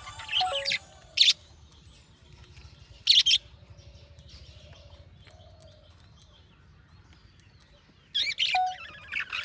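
Budgerigar chirping in short, sharp bursts: a few near the start, a pair about three seconds in, and a cluster near the end. Soft, quiet warbling runs between the bursts.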